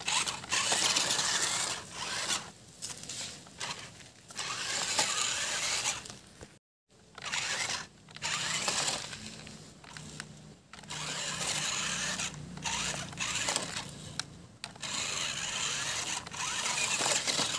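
Toy RC rock crawler's small electric drive motors and gearboxes whirring, with its tyres scrabbling through dry grass, in spurts as the throttle is applied and let off.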